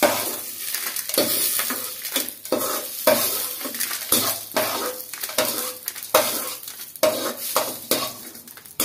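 Perforated steel skimmer scraping the inside of a hot oiled kadai as fried chana dal is scooped out and dropped onto a steel plate, with hot oil sizzling. Repeated short scrapes and clatters, about two a second, over a steady hiss.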